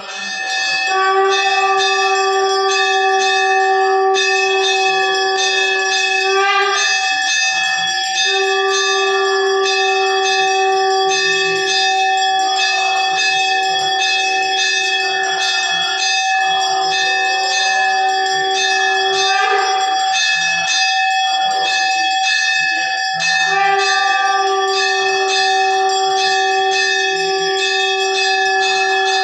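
Temple bells rung rapidly and without pause for an aarti, many quick strikes over several steady ringing tones.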